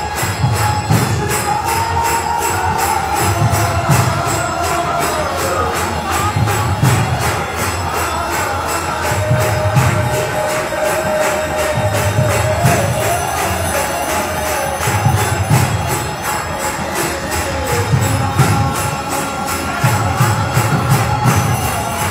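Devotional kirtan: voices chanting a gliding melody over a steady rhythm of clashing karatals (small hand cymbals), with deep drum strokes coming in repeating groups.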